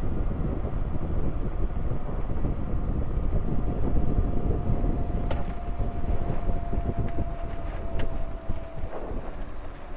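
Quad City Challenger II ultralight's engine and propeller running steadily as the aircraft rolls over a grass strip, heard from the open cockpit with wind buffeting the microphone. Two sharp clicks come about halfway through and again near the end.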